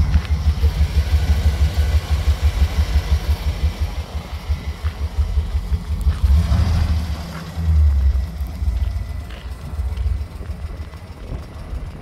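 2008 Chevrolet Express cutaway box truck's gasoline V8 idling with a steady, low, fast-pulsing exhaust beat, swelling louder briefly around the middle.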